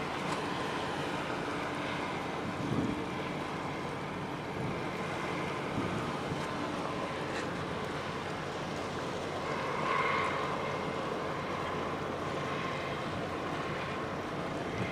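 Steady wind and sea noise with the faint hum of a large container ship under way. A faint tone swells briefly about ten seconds in.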